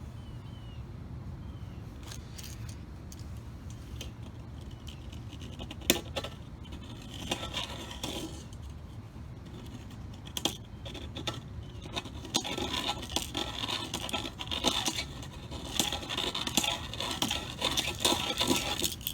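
Hand reamer scraping around the inside lip of a cut 3/4-inch EMT steel conduit, taking off the burr. Scattered scraping strokes with a sharp click about six seconds in, then steadier, louder scraping through the second half.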